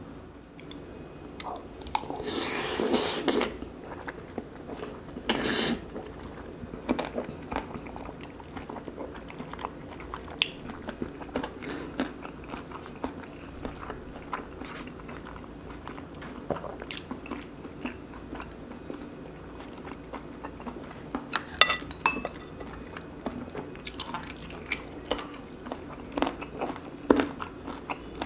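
Close-miked chewing and biting of braised pork belly and kimchi with rice: wet, crackly mouth sounds with crisp crunches, two louder noisy bursts a few seconds in, and a quick run of sharp clicks about three-quarters of the way through.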